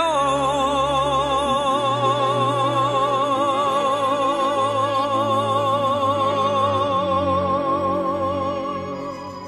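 A singer holds one long note with a wide vibrato over a soft instrumental backing, easing off near the end.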